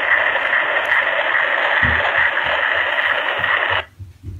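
Recorded ultrasound fetal heartbeat played from a small sound box inside a teddy bear. Loud hiss through a tiny speaker carries a soft, fast pulse of about two and a half beats a second, then cuts off suddenly near the end.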